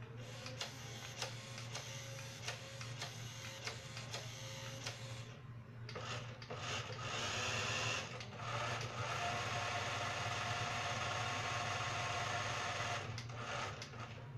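Small electric motor and gears of a toy radio-controlled Porsche Cayenne whining: first a run of sharp clicks with short motor spurts, then the motor running steadily for several seconds before stopping near the end. The owner thinks it is running weak and needs new batteries.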